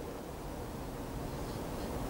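Quiet room tone: a steady low rumble and faint hiss with no distinct sound.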